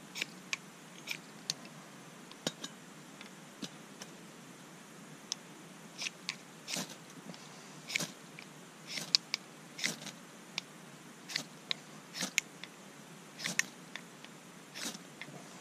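Ferro rod struck repeatedly with a scraper to throw sparks onto tinder: a couple of dozen short, sharp scrapes at irregular intervals, some much louder than others.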